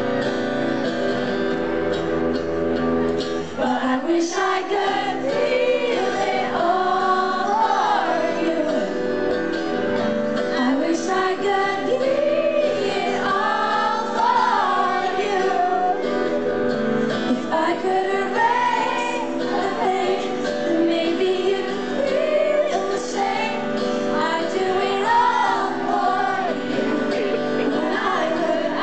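Live pop music: a female lead singer with band accompaniment, holding sustained chords under her melody.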